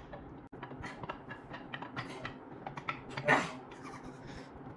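Camshaft being worked out of a Chevy 350 small-block's cam bearings: irregular light metal clicks and scrapes, with a man's strained breath about three seconds in.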